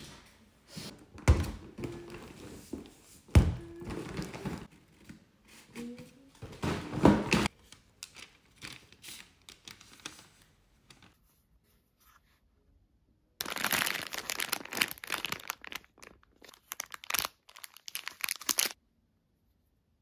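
Rustling and crinkling of a plastic shopping bag and packaging as groceries are unpacked, with two thuds of items being set down in the first few seconds. After a quiet stretch, about five seconds of dense crinkling.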